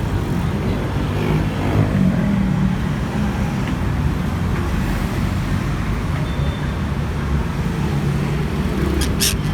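Steady low rumble like road traffic, with two short, sharp high squawks from a green-cheeked conure near the end.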